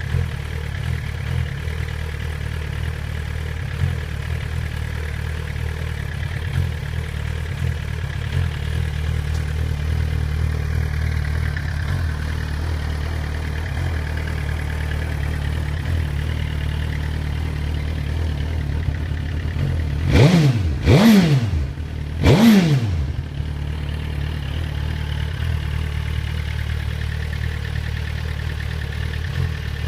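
2008 Suzuki GSX-R1000's inline-four engine idling with what the owner calls a rough idle. About two-thirds of the way through, the throttle is blipped three times in quick succession, the revs rising and falling each time.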